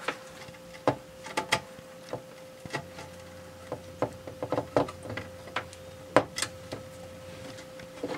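Irregular small clicks and taps of a screwdriver working the screw terminals of a metal-cased switching power supply while the wires of an AC power cord are fastened in, over a faint steady hum.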